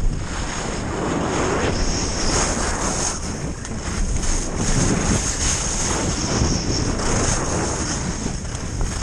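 Wind buffeting an action camera's microphone during a fast downhill ski run: a continuous low rumble that surges and eases, with the hiss and scrape of skis on packed snow.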